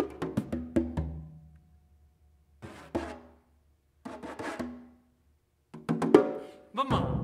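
Congas struck by hand in short flurries of sharp strokes, each drum ringing briefly at its pitch, separated by near-silent pauses of about a second.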